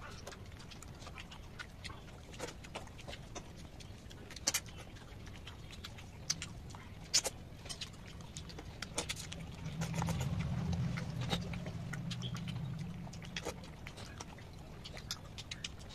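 Close-up eating sounds: wet chewing, lip-smacking and sucking as fish-head pieces from a curry are eaten by hand, with many short sharp smacks and clicks. A low hum rises for a few seconds just past the middle.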